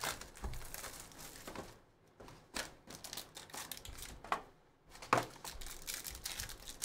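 Plastic wrapping on a trading-card box and packs crinkling and tearing as they are opened by hand, in irregular crackly bursts with a few sharp taps.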